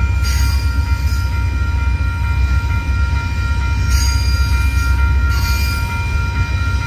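Union Pacific double-stack intermodal train rolling through a grade crossing: a steady, heavy rumble of wheels on rail, with a few brief high wheel squeals. Over it the crossing's new electronic bell rings on as steady high tones.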